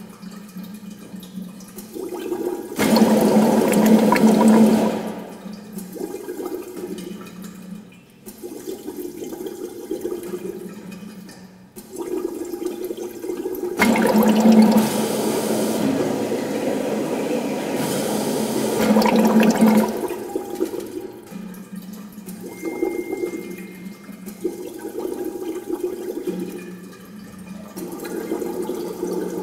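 Compressed air blown through tubes into glass jars and pitchers of water, bubbling and gurgling in several voices at once. The channels are switched in a sequence by an Arduino, so the bubbling swells loudly about three seconds in and again for several seconds from about the middle, with quieter gurgling between.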